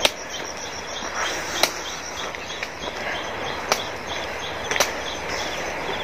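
Crickets chirping steadily in short, evenly repeated high pulses, with a few sharp taps at irregular intervals.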